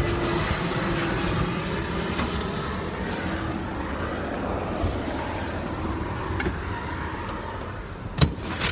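Steady engine and road noise of a moving vehicle, a constant low rumble and hiss, with a couple of sharp clicks near the end.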